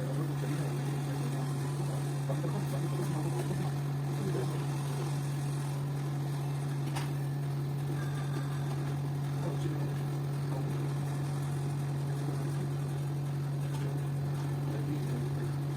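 Steady low hum of a small electric fan or blower motor, with a faint click about seven seconds in.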